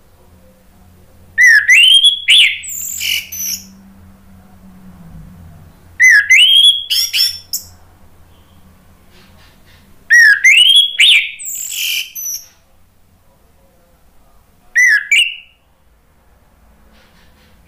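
Orange-headed thrush singing in four loud phrases a few seconds apart. Each opens with a rising whistled slur and runs into quick, high, scratchy notes; the last phrase is short.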